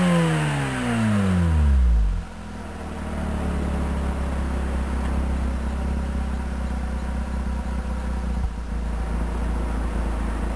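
Mazda RX-8 Type RS's two-rotor Renesis rotary engine through an R-Magic tuned silencer: the revs fall away over the first two seconds and it then settles to a steady idle. The silencer's glass-wool packing is not yet worn after about 10,000 km.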